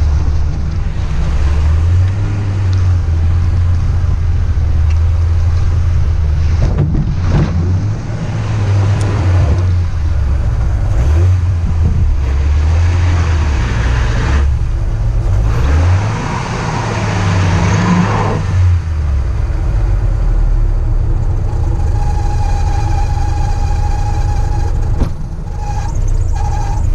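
A car engine revving up and down while driving over rough ground, with a rushing haze of tyre and wind noise. Near the end, a steady higher whine sounds for a few seconds.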